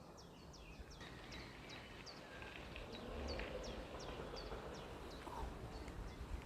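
A bird repeating a short, high, falling chirp about three times a second, over a faint low rumble.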